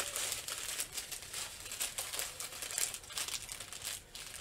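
Plastic packaging crinkling as it is handled, in quick irregular rustles.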